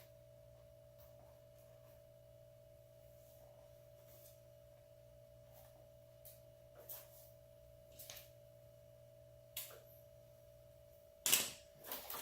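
A faint, steady high-pitched whine over a low hum, with scattered light clicks and rustles of hands handling wires and small parts. Louder clattering starts near the end as the low hum stops.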